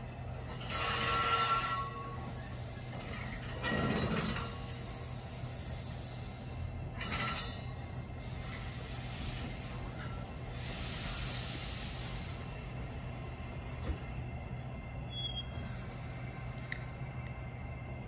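Metra Highliner electric commuter car rolling slowly toward the listener over a steady low hum, with four bursts of hiss, one about a second in, the last about eleven seconds in, and a brief faint squeal.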